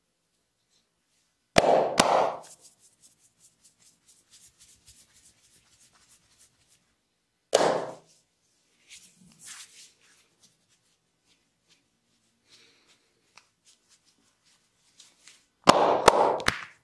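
Sharp slaps of hands striking the body in a percussive massage: two close together about a second and a half in, one more about halfway, and a quick run of them near the end, with faint small ticks between.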